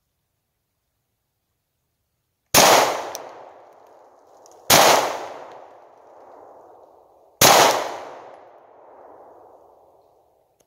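Three 9mm pistol shots from a Glock 19 Gen 4, fired slowly about two to three seconds apart, each shot followed by a long echo that fades away.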